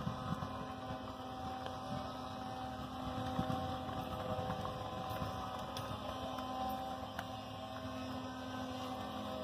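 Wooden ox carts' axles singing as the carts roll: a steady, humming drone with several pitches held together, the traditional squeal of the wooden axle turning in its wooden bearing blocks.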